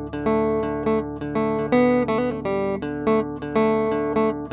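Background music: an acoustic guitar plucking a gentle, repeating pattern of single notes, several notes a second.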